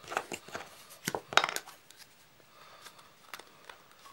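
Small metal pieces and tools clinking and clicking as they are picked up and handled: a quick cluster of clinks in the first second and a half, the loudest about a second and a half in, then a few faint ticks.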